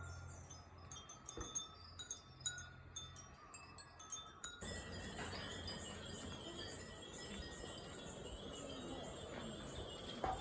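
Many hanging Japanese wind chimes (fūrin) tinkling in scattered light strikes. A little under halfway through, the sound cuts abruptly to a denser, steadier ringing of chimes.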